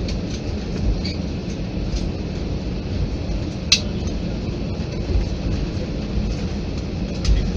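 Airliner cabin noise while the plane rolls along the ground: a steady low rumble with light rattles, and one sharp click about three and a half seconds in.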